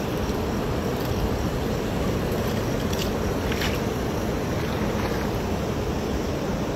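Steady rushing of a river flowing over rocks, mixed with wind buffeting the microphone, with a couple of faint brief sounds about halfway.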